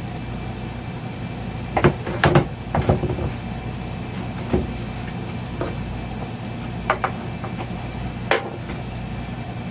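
Handling of tools and metal parts: a series of sharp knocks and clicks, several close together about two seconds in, then single ones spread out toward the end, over a steady low hum.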